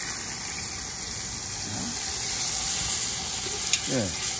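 Seasoned pork steak searing in hot oil in a cast-iron pot: a steady, hissing sizzle. A light click comes near the end.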